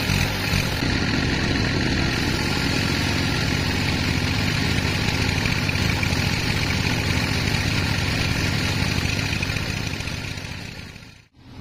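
Sawmill machinery running steadily, a continuous engine-like mechanical noise, cutting off abruptly for a moment near the end.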